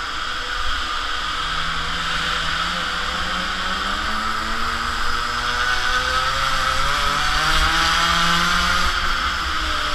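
Mini moto's small two-stroke engine running hard, heard from the bike, its pitch climbing for several seconds and dropping near the end, over a steady rush of noise.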